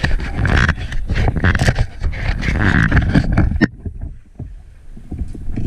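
Water splashing and wind buffeting the microphone, with scattered knocks. About three and a half seconds in the higher sounds drop out suddenly, leaving a quieter, muffled rumble, and the fuller splashing returns near the end.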